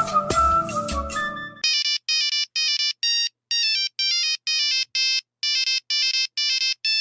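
Old mobile phone ringtone: a synthetic beeping melody of short, evenly spaced notes with brief silences between them, starting about one and a half seconds in as another tune cuts off.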